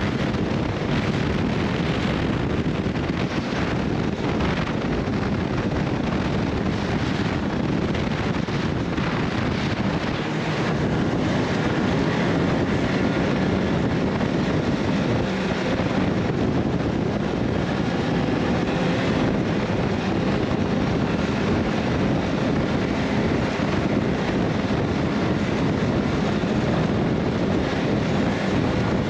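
Wind rushing over the microphone with a steady low rumble of a vehicle in motion, growing slightly louder about ten seconds in.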